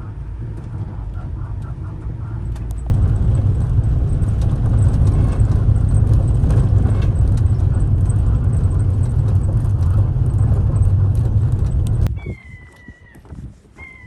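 Boat engine running, throttling up about three seconds in to a loud steady drone, then cut back sharply near the end. Thin, high whining calls follow once it drops.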